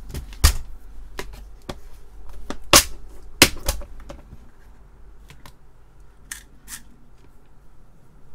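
Clear plastic compartment organizer of small screws and nuts being set down and opened: a run of sharp plastic clicks and knocks, the loudest about three seconds in, then a few fainter clicks.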